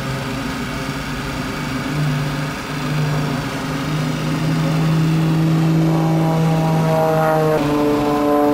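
Piston engine and propeller of a small aerobatic plane flying overhead, a steady drone that swells about four seconds in. Near the end the pitch slides down and then drops a step as the plane manoeuvres.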